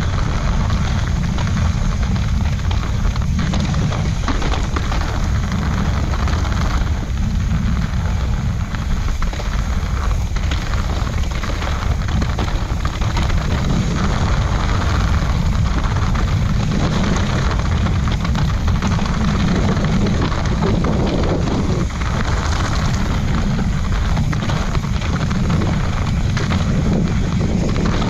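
Wind buffeting the camera microphone during a fast mountain bike descent, a steady heavy rumble mixed with the hiss of tyres on a dirt trail.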